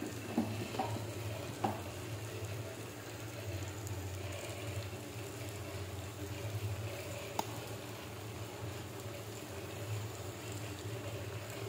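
Elephant foot yam pieces in onion-garlic masala frying gently in a kadhai while being stirred with a ladle, with a few sharp clicks of the ladle against the pan in the first two seconds and once more about seven seconds in. A steady low hum runs underneath.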